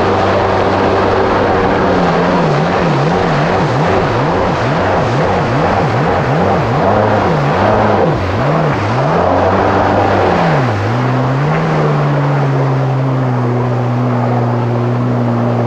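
Kawasaki SX-R 1500 stand-up jet ski's four-stroke four-cylinder engine and jet pump running under way. Its pitch rises and falls about twice a second for several seconds. It then settles into a steady, higher pitch as the craft picks up speed.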